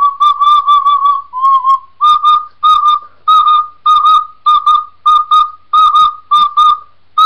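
Recorder playing a run of short, separately tongued notes that stay on nearly the same high pitch, many in quick pairs of about two notes every half second.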